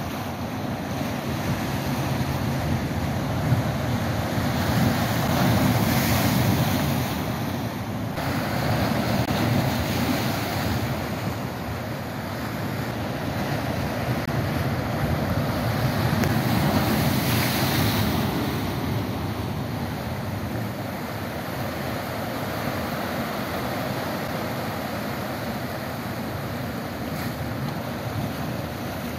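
Sea surf washing and breaking over a rocky shoreline, rising and falling in several swells as waves come in, with wind buffeting the microphone.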